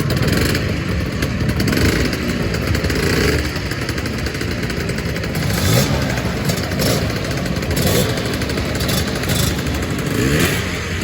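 Several two-stroke Lambretta scooter engines running and being revved as the scooters pull away, with a few rises in pitch as throttles open.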